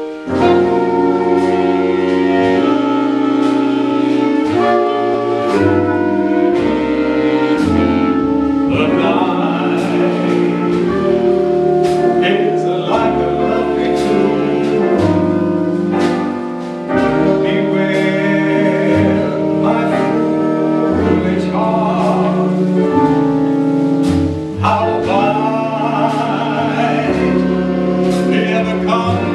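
Small jazz ensemble of saxophones, trumpet, electric guitar and double bass playing a slow ballad with long held horn chords. A vocalist singing through a microphone comes in about nine seconds in and carries the melody over the band.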